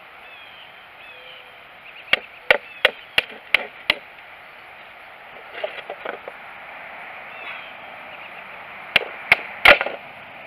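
Wooden baton striking the spine of a Cold Steel Fin Bear fixed-blade knife to split a stick: six sharp knocks in quick succession, a few softer taps, then three more strikes near the end, the last the loudest as a piece splits off.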